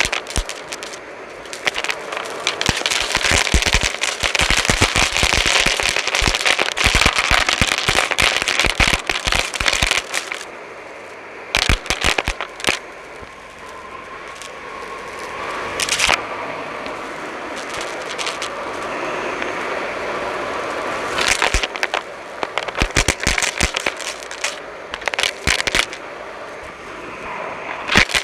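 Dyson Light Ball upright vacuum running with a steady hiss while it sucks up crunchy debris, which crackles and rattles through it in dense bursts. The crackling thins out to a few scattered clicks about ten seconds in, then picks up again later on.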